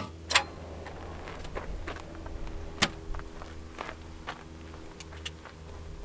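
Scattered sharp clicks and knocks of gear being handled in an SUV's cargo area, the loudest just after the start and about three seconds in, over a steady low hum.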